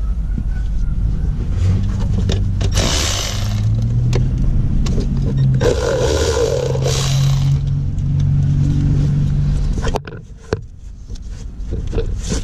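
A motor running with a low hum that rises in pitch in steps and then holds, with two short bursts of hiss about three and six seconds in; the hum cuts off suddenly about ten seconds in.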